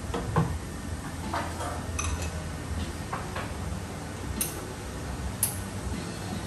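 Cups and small glassware clinking and knocking against the espresso machine and counter as they are handled, about half a dozen separate sharp clinks over a steady low hum.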